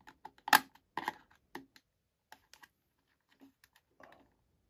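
Small sharp clicks and taps from hands working wire connectors on a loudspeaker crossover's terminal plate. The loudest click comes about half a second in, a second cluster follows about a second in, and fainter ticks are scattered through the rest.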